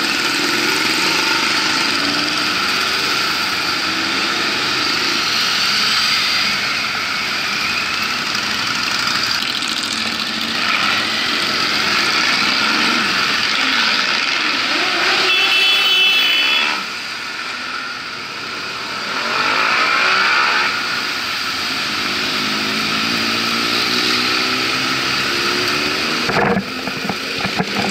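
A column of motorcycles and quad bikes riding past one after another, engines revving and fading as each machine goes by. A short high-pitched tone sounds briefly near the middle.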